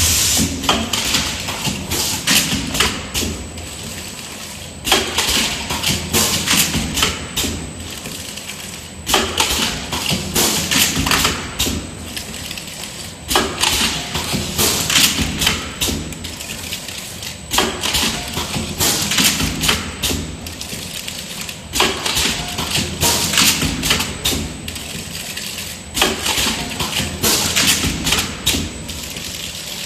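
Alcohol cotton ball blister packaging machine (PPD-ACBP40) running: a cluster of clattering knocks and thuds comes about every four seconds, one machine cycle each, over a steady mechanical hum.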